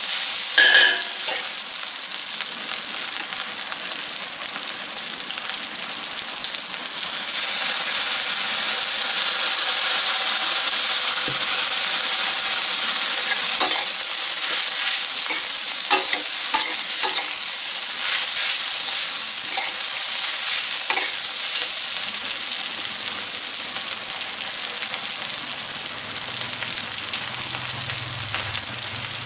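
Fried rice sizzling in a metal wok as a metal spatula stirs and scrapes it, with scattered clanks of the spatula against the pan and one louder ringing clank about a second in. The sizzle grows louder about seven seconds in.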